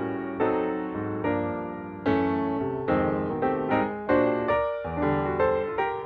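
Background piano music: a gentle run of struck chords, each fading before the next.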